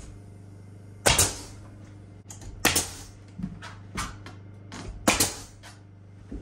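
Pneumatic nail gun driving nails into OSB wall sheathing: sharp shots each followed by a brief hiss of air, two in quick succession about a second in, then single shots near three and five seconds, with lighter knocks and footsteps between.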